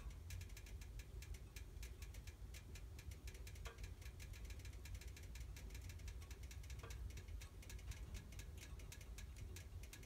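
Wood fire in a fireplace crackling, with many small irregular pops and a few louder ones, over a low steady rumble.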